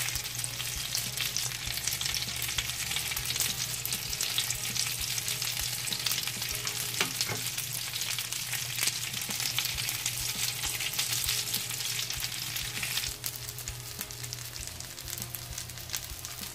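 Stuffed bell pepper rings frying in oil in a pan: a steady sizzle full of small crackles, dropping a little in level about thirteen seconds in.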